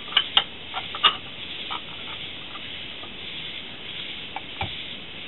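Light clicks and taps of the metal parts of a centrifugal oil filter (perforated screen and canister) being handled and fitted together for reassembly. The clicks come several in the first two seconds and once more near the end, over a steady hiss.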